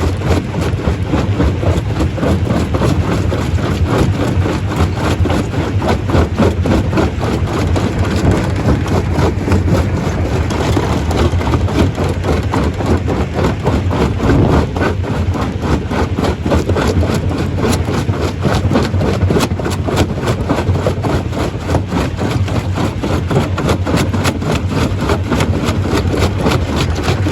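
Stone crusher running: a steady low machine drone under a continuous, rapid clatter of knocks as rock is crushed.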